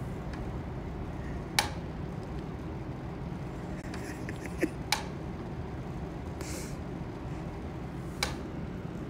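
Steady low rumble of room noise, broken by three sharp clicks a few seconds apart and a brief hiss between the second and third.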